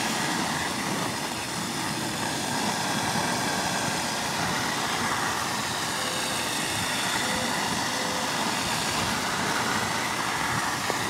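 Garden hose running water into a Dutch bucket filled with perlite, a steady rush of water rinsing the white dust out of the perlite.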